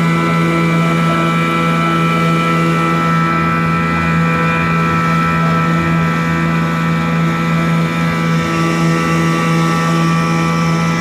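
1993 Johnson 4HP Deluxe two-stroke outboard motor running at a steady speed, its pitch holding even throughout.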